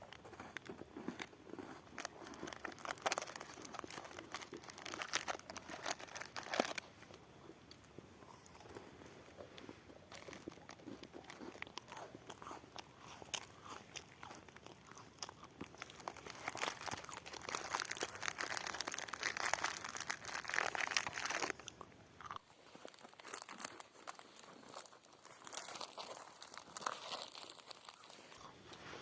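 Close-up crunching and chewing: someone biting into and eating crunchy food, in uneven bunches of crisp clicks that are loudest twice, about 3 to 7 seconds in and again about 16 to 21 seconds in.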